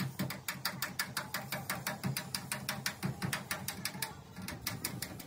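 A fast, even series of sharp taps, about six or seven a second, that stops shortly before the end, over a steady low hum.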